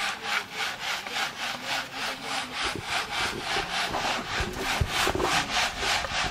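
Wooden-framed sieve pushed back and forth by hand, charcoal dust rasping across the mesh in an even rhythm of about three strokes a second.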